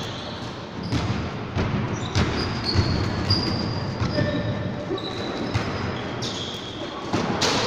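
Basketball bouncing on a hardwood gym floor during play, a string of separate thuds, with short high squeaks from sneakers on the court.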